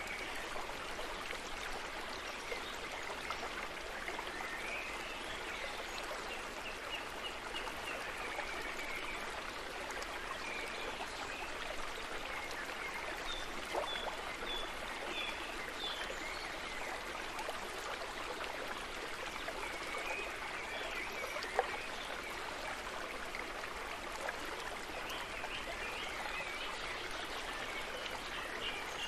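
Steady running water of a stream, with rows of short high chirps now and then and a single brief knock about three-quarters of the way through.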